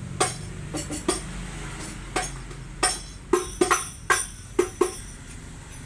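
Hadroh frame drums (rebana) struck by hand in a sound check: about a dozen sharp strokes, each with a short low ring, in an irregular rhythm that clusters in the middle and stops for the last second.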